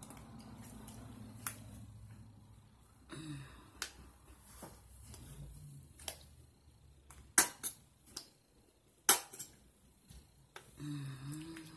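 A few sharp clicks and taps of a plastic hair-conditioner bottle being handled, the two loudest about seven and nine seconds in, over a faint low hum.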